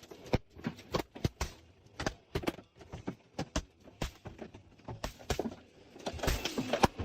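Rocks and debris knocking and clattering as they fall down a landslide slope: a string of sharp, irregular knocks, with a rush of noise building near the end.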